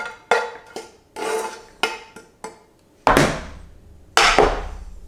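A spoon and a non-stick frying pan knocking and scraping against a plastic mixing bowl as onion is tapped out of the pan, a quick series of sharp knocks with short ringing. Then two louder clattering thumps, about three and four seconds in, as the pan is set down on an induction hob.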